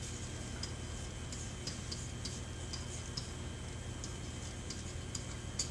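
Pen tip tapping and scratching on an interactive whiteboard as words are written: a string of faint, irregular light ticks over a steady low room hum.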